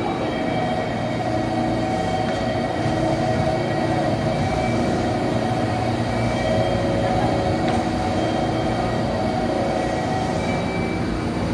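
JR Kyushu 813-series electric train standing at the platform with its doors open, its onboard equipment giving a steady hum with several held whining tones.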